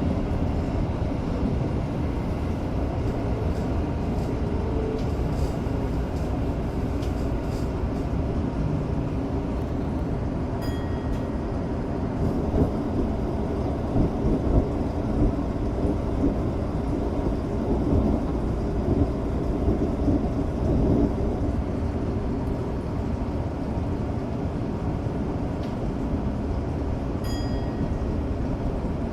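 Tokyo Metro 05 series train running between stations, heard from inside the front car: a steady rumble of wheels on rail and running gear, with a couple of brief high ticks.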